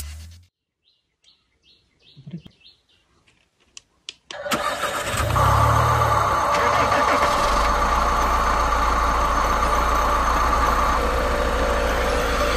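A remote-control toy construction vehicle starting up suddenly about four and a half seconds in, then running steadily, with a low hum setting in a few seconds later. Before it, a few faint chirps in near silence.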